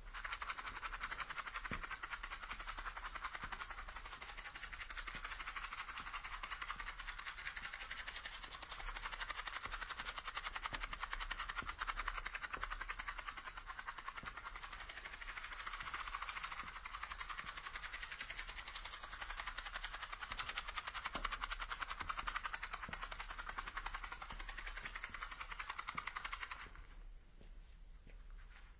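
Matches rattling inside a shaken matchbox: a dense, continuous rattle that swells and fades as it is moved around in 3D surround audio. It stops suddenly near the end.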